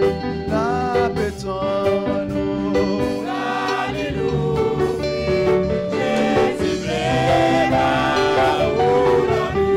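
Live gospel worship music: a man's voice singing a hymn through a microphone over instrumental accompaniment.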